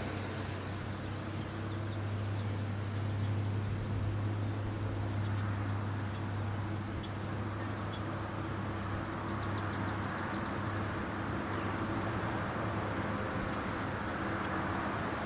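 Rice combine harvester's engine running with a steady low hum.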